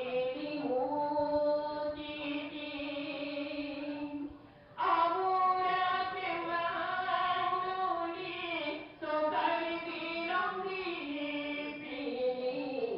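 Voices singing a slow prayer chant in long, held phrases, with short breaks about four seconds in and again about nine seconds in.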